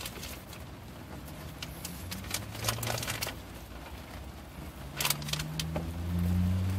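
A low vehicle engine hum, rising slightly in pitch over the last couple of seconds, with a few rustling and clicking handling noises inside a car.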